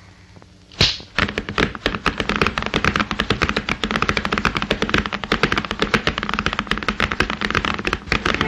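A sharp crack about a second in, then a fast, steady clatter of a team of galloping horses' hooves pulling a coach.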